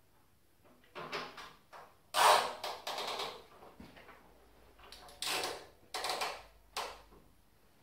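A handful of short scraping or sliding noises, the longest lasting about a second.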